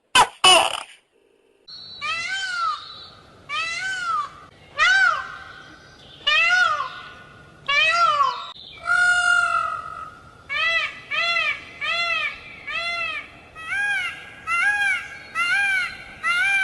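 An animal calling over and over: a string of short, ringing calls that each rise and fall in pitch, spaced about a second apart and coming faster in the second half, after two sharp short calls at the start.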